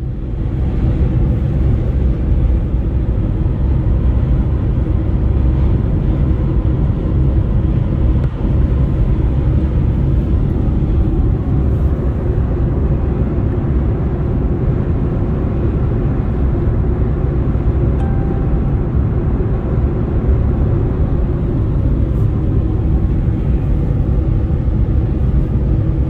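Car driving: a steady, low rumble of road and engine noise.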